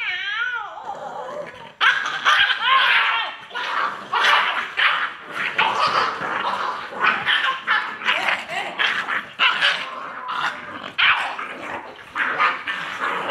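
Two puppies scuffling, yapping and yelping in quick succession with some growling: a squabble at the food plate. It opens with a falling yelp, then a rapid run of high-pitched yaps keeps going without a break.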